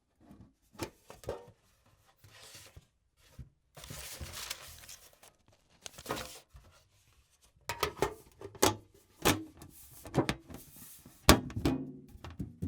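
Loose pieces of paper being shuffled around inside a tin box: papery rustling broken by irregular clicks and knocks as the paper and box shift against the metal, the knocks coming more often in the second half.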